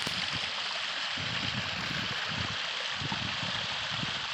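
Water running down the rocks of a backyard pondless waterfall, a steady splashing rush.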